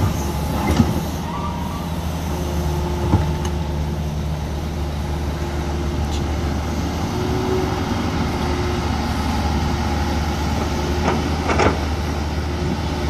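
Hitachi Zaxis 200 tracked excavator's diesel engine running steadily under load as it works, with a few sharp knocks, the last pair as the bucket tips soil and rubble into a dump truck.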